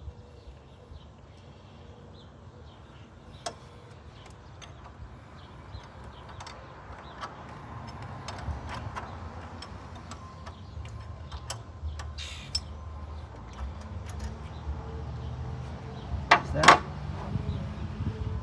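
Scattered clicks and clinks of hand tools and parts as an engine's fuel pump fittings are worked on, with a louder clatter of a couple of knocks near the end.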